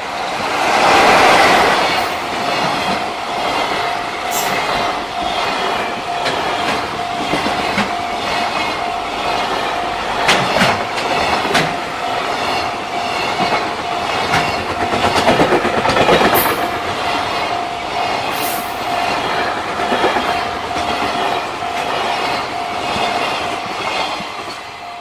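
Freight train passing close by at speed: the loudest moment is about a second in, followed by a long run of freight wagons clattering over the rail joints, with a few brief high-pitched squeals. A level crossing warning bell keeps up a steady ringing tone underneath.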